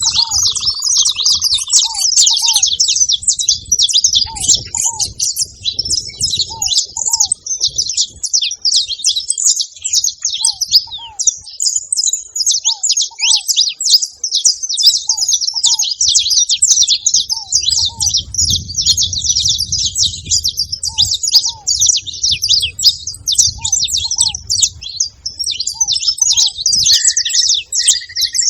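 Saffron finches chirping continuously in a dense run of quick, high chirps. Underneath, a softer pair of short, lower notes repeats every couple of seconds, and a brief whistled note comes near the end.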